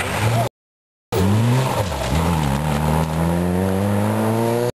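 Rally car engines. The first cuts off abruptly about half a second in. After a short silent gap a second rally car's engine comes in, dips in pitch briefly and then revs up with a steadily rising pitch as it accelerates.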